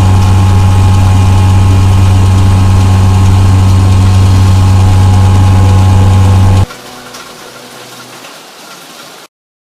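Very loud, distorted, steady rumbling sound effect of the hurricane striking, with a heavy low hum. It cuts off abruptly about two-thirds of the way through, leaving a much quieter rushing noise that stops dead near the end.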